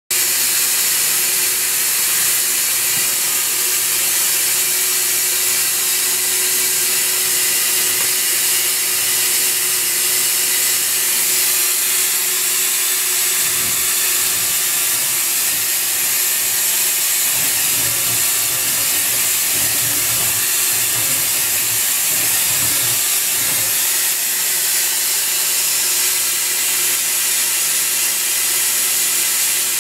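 Mori Seiki SH-503 horizontal machining center running inside its enclosure, with a steady hiss of coolant spray. An uneven low rumbling joins in from about halfway through for some ten seconds.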